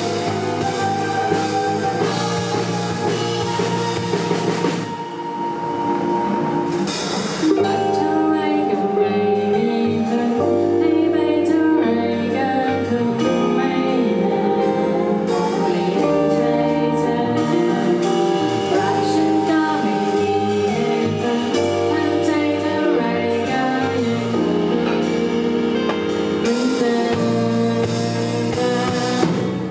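Synth-led electronic pop song played by a band with drums and a sung vocal line. About five seconds in, the cymbals and highs drop out for a couple of seconds before the full band comes back in.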